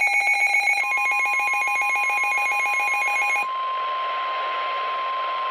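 Weather radio receiving a warning: a rapidly pulsing electronic alert beep that stops about three and a half seconds in, overlapping the steady 1050 Hz NOAA Weather Radio warning alarm tone, which starts about a second in and is heard over radio static hiss.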